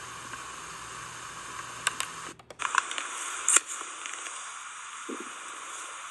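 Handling noise from a phone camera being moved and set to an optic's eyepiece: several sharp clicks and knocks in the middle, the loudest about three and a half seconds in, with a brief cut-out just before, over a steady hiss.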